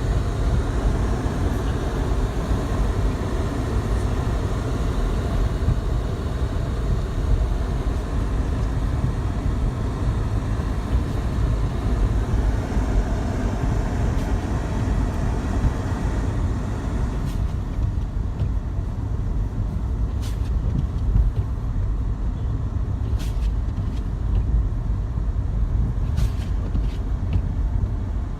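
Snowstorm wind buffeting the microphone: a steady, gusting low rumble, with a few faint clicks in the second half.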